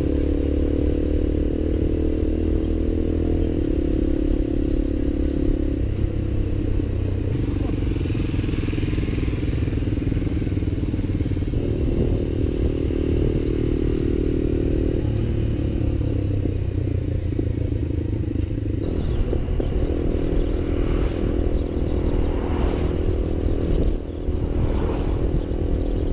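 Motorcycle engine running under way, heard from the moving bike, its pitch holding steady for a few seconds at a time and then shifting as the rider changes speed, with wind and road noise over it.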